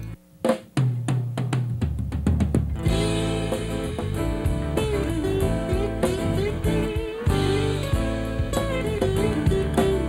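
A band starts a song live: drum kit hits over a bass line for the first couple of seconds, then acoustic guitars and a melody line come in with the full band about three seconds in.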